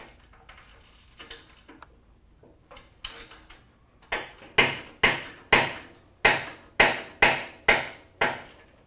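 Ratcheting wrench turning a muffler bracket bolt: a few faint clicks, then from about halfway a steady run of sharp ratchet clicks, about two a second.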